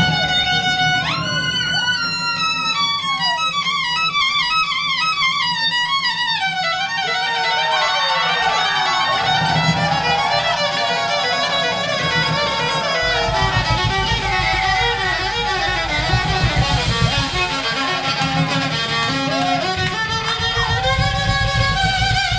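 Live klezmer-punk band playing, with a violin leading in fast, falling runs over bass and drums. The low end of bass and drums grows heavier about halfway through.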